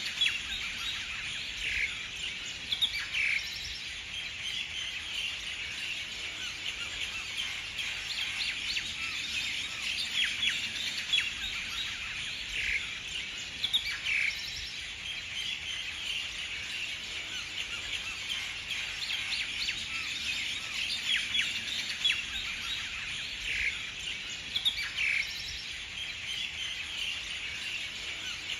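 Many small birds chirping and twittering at once, a steady chorus of short high calls with louder notes standing out now and then; the same stretch of chorus repeats about every eleven seconds.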